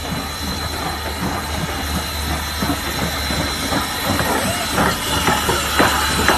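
Norfolk & Western No. 475 steam locomotive hissing steam over a steady low rumble. Sharp clicks and clanks come more often in the last few seconds.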